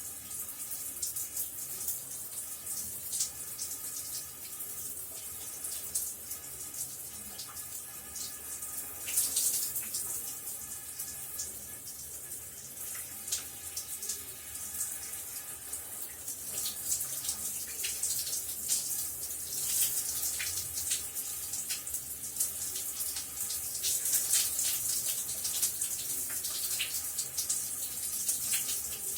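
Shower running steadily, water spraying and splattering with many small irregular splashes.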